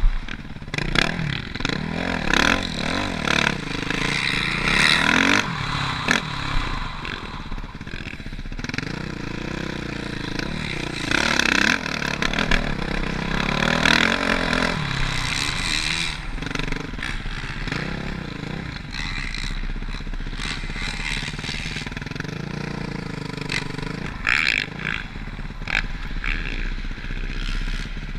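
Motocross bike engine running hard, its pitch rising and falling again and again as the rider accelerates, shifts and backs off around the track, with clattering and scraping mixed in.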